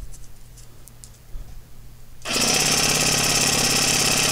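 A reciprocating saw (Sawzall) driving a ball pump starts up suddenly about two seconds in and runs steadily with a fast, even rhythm.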